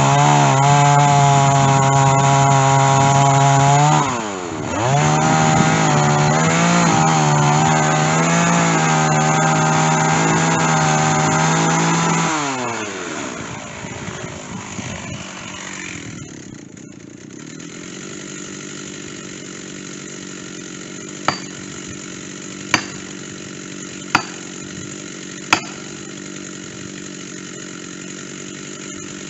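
Stihl chainsaw running at full throttle through oak, with a dull chain. The revs dip and pick up again about 4 s in, then the saw is throttled down to idle a little after 12 s. Four sharp strikes about a second and a half apart come near the end over the idling saw.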